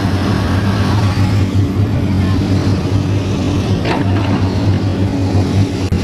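Diesel engine of an XCMG XE215C crawler excavator running steadily, a low even hum.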